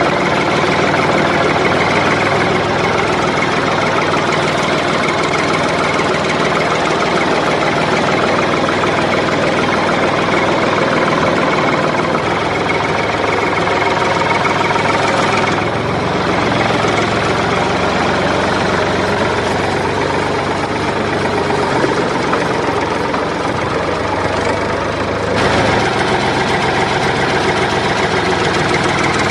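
An engine or motor running steadily, with an abrupt change in its tone about halfway through and again near the end.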